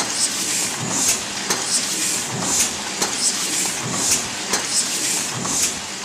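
Heidelberg cylinder printing press running, a repeating mechanical clatter of sharp clicks and short hissing puffs about twice a second as it prints record-sleeve sheets.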